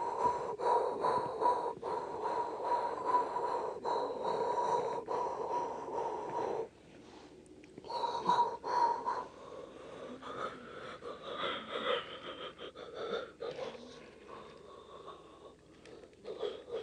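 Toy train cars rolling along a plastic toy track, with a steady running noise and regular clicks about twice a second as the wheels cross the rail joints. It stops about two-thirds of the way in, then starts again more unevenly and quieter.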